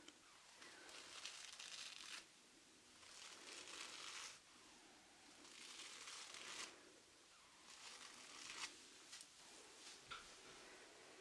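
Faint, soft rustling strokes, repeating about every two seconds, with a few small clicks late on.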